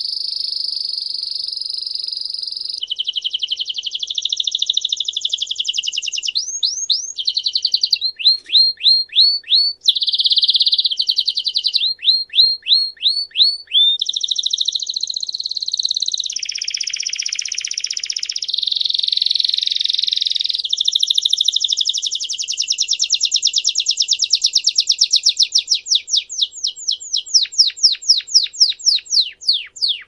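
Belgian canary singing a continuous song of changing phrases. Even, rapid trills alternate with runs of sweeping notes repeated about four to five times a second, with a new phrase every second or two.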